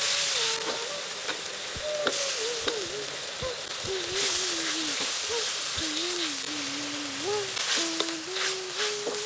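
Vegetables sizzling as they are stir-fried in a wok, with scrapes and knocks of a wooden spatula against the pan. A slow, wavering tune runs over it.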